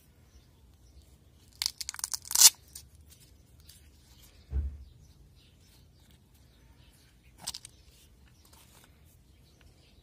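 Hook-and-loop (Velcro) flap of a nylon Victorinox knife pouch ripped open, a short tearing rasp about two seconds in. A dull thump follows a couple of seconds later, then a lighter brief rustle.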